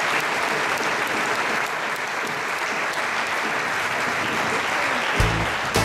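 Audience applauding steadily. About five seconds in, music with a heavy bass beat starts.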